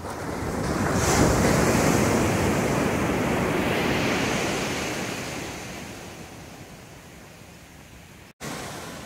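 Ocean surf: a wave breaking and washing up the beach, swelling about a second in and fading away over several seconds. The sound cuts out briefly near the end.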